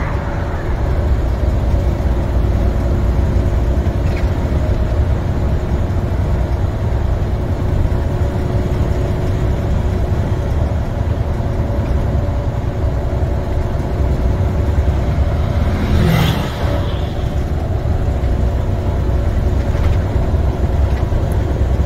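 International semi tractor's MaxxForce 13 diesel engine and road noise droning steadily inside the cab while cruising, with a single sharp knock about sixteen seconds in.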